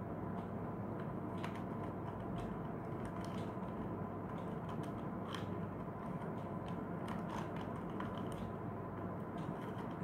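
Plastic 2x2 Rubik's cube being turned by hand: quick, irregular clicks and clacks as its layers snap round. A steady background hiss and hum runs underneath.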